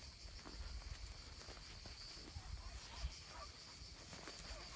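Faint outdoor ambience: a steady high-pitched insect drone over a low wind rumble on the microphone.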